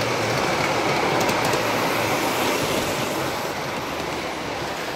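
Electric large-scale model train running along its track: the steady rolling noise of the locomotive and cars on the rails, a few faint ticks about a second in, getting a little quieter over the last couple of seconds as it moves away.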